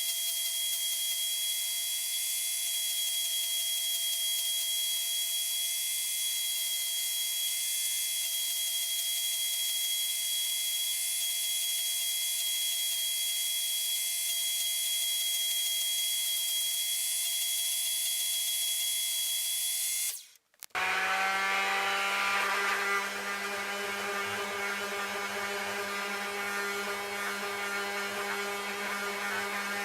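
Power tools running steadily: one with a high hiss and a steady whine, then, after a break about twenty seconds in, another with a lower hum.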